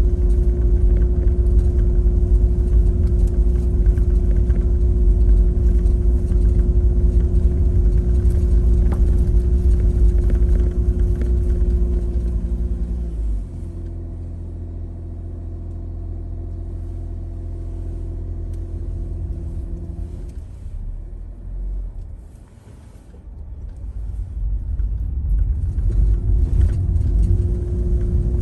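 Car engine and road rumble from a moving car, heard from inside. The rumble drops about halfway through and dies away to a low point a few seconds before the end, as the car slows. It then builds up again as the car picks up speed.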